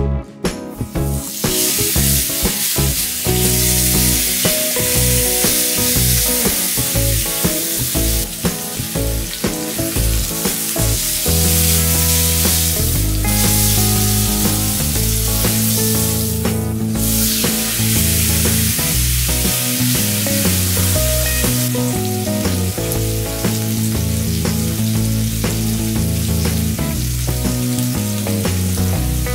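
Thick tomahawk steak sizzling in a hot ridged grill pan over a gas flame, the sizzle starting about a second in, over background music.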